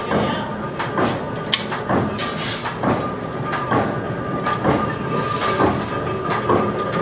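Metalworking workshop noise: a steady machine hum under metallic knocks and clanks about once a second, with steel plate sheets being handled.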